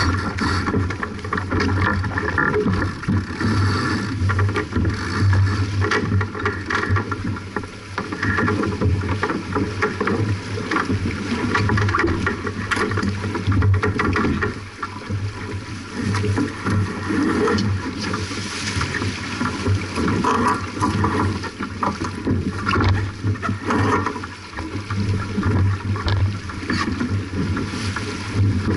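Water rushing and splashing along the hull of a J/24 racing keelboat under sail, with wind rumbling on the microphone; a continuous, fluctuating wash of noise.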